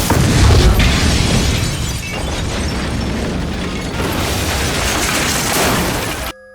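Explosion of a thrown chunk of fulminated mercury: a sudden loud blast followed by several seconds of rumbling, crashing noise. About six seconds in it cuts off abruptly, leaving a steady high ringing of several tones.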